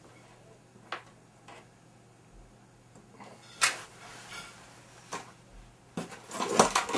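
Scattered clicks and knocks of small objects being handled and set down on a desk, the loudest in the middle and a quick cluster near the end, over a faint steady low hum.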